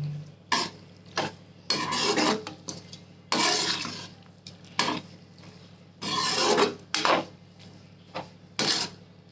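A spoon stirring and scraping around a cooking pot, mixing salt into a simmering vegetable and tamarind gravy, in a run of uneven strokes about once a second.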